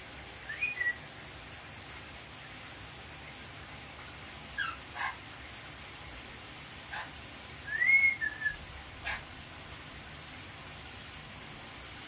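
A pet conure giving short whistled chirps: a rising-then-falling chirp near the start, a few brief squeaks in the middle, and a louder rising-and-falling chirp about two-thirds in, over the steady hiss of a running shower.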